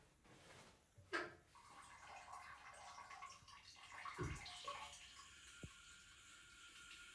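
A person urinating: a thin hissing stream of urine starts about one and a half seconds in and runs on steadily, after a short sharp sound about a second in and with a low thud midway.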